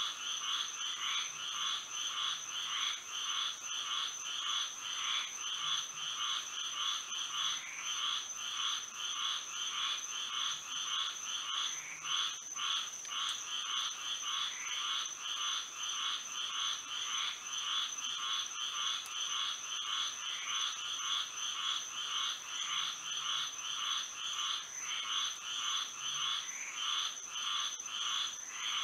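A dense chorus of many frogs calling, their overlapping calls repeating several times a second without a break. A steady high-pitched tone sits above the chorus.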